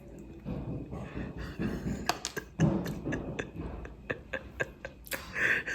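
Crunching of a tanghulu's hard sugar shell being bitten and chewed: a scatter of sharp, irregular cracks.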